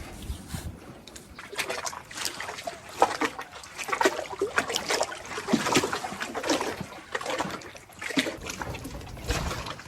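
Kayak paddle strokes: the blades dip and splash in the water and drip as they lift, in an irregular run of splashes about once a second.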